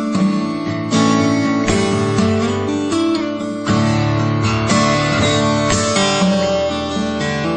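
Background music of strummed acoustic guitar, with fresh strums about every second.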